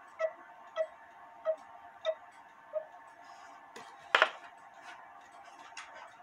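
Antique Faller & Söhne cuckoo clock movement ticking, about five ticks two-thirds of a second apart that stop about three seconds in. A little after four seconds in comes a single loud knock from handling the wooden clock case.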